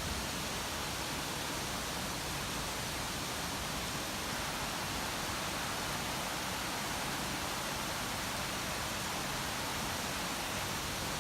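Steady, even hiss of a heavy rainstorm, with no thunderclap or change in level.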